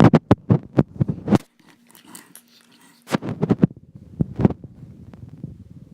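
Clicks and knocks of a flexible tripod and its packaging being handled close to the microphone: a quick run of them, a short pause, then a second run about three seconds in.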